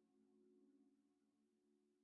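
Near silence, with only a very faint steady hum of a few low tones that fades a little after about a second.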